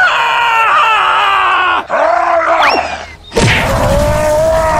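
A dubbed character voice groaning and yelling in long, wavering, strained cries without words. A low rumble sets in suddenly about three and a half seconds in.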